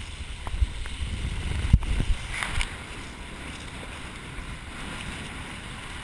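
Choppy water sloshing and splashing right at the camera, with wind rumbling on the microphone. A few sharp knocks come in the first two seconds, then it settles into a steadier hiss.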